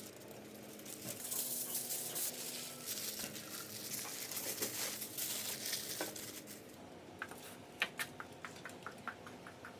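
Aluminium foil and baking paper crinkling and rustling as they are folded and pressed around a food parcel. Near the end the crinkling gives way to a run of quick, light clicks, about four a second.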